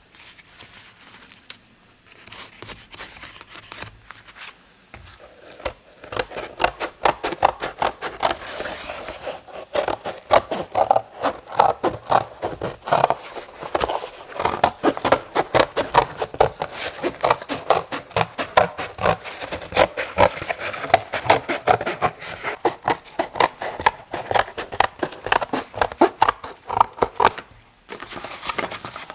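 Hand work on a bicycle saddle: quick repeated scraping strokes, several a second, starting about six seconds in and stopping near the end.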